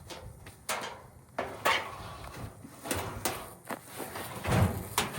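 Irregular metal clanks and scrapes, about seven in all, as scrapped dryer parts are handled and shifted, with a heavier thump about four and a half seconds in.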